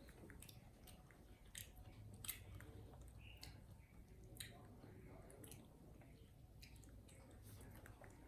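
Faint chewing by a monkey eating food, with small scattered clicks and crunches about once a second.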